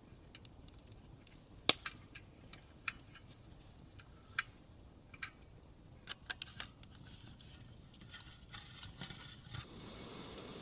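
A series of irregular sharp clicks and taps, the loudest about two seconds in. Near the end a steady hiss sets in.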